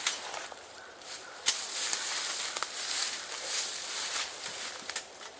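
Footsteps shuffling and crunching through dry fallen leaves, an uneven rustle with a sharp crack about a second and a half in.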